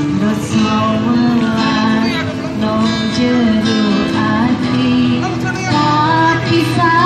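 Acoustic guitar strummed with a singing voice over it, both amplified through a loudspeaker.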